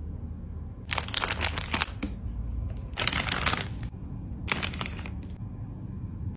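Toy packaging being handled: paper and plastic crinkling and rustling in three short bursts, about a second in, around three seconds, and again around four and a half seconds.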